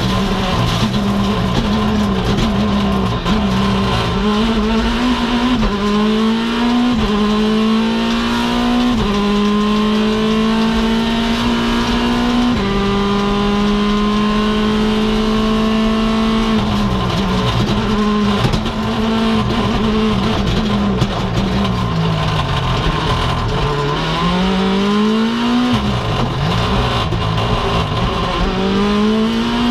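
Mini John Cooper Works WRC's turbocharged 1.6-litre four-cylinder engine at full rally-stage pace, heard from inside the cabin. The revs climb through a series of quick upshifts in the first dozen seconds and hold high on a straight. Through the second half they fall under braking and rise again several times through corners.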